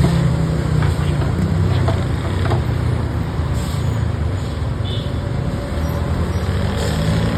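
Backhoe loader's diesel engine running steadily, with a few faint clicks.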